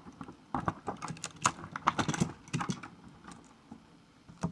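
Irregular clicks and taps of plastic packaging and small toy train pieces being handled as a toy set is taken out of its box, coming thickest in the first half and sparser after.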